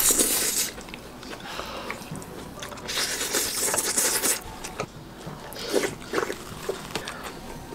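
Loud, hissing slurps as saucy food is sucked off a spoon, so strong the caption likens it to a vacuum cleaner: one at the start and a longer one about three seconds in. Chewing and mouth smacks fill the gaps.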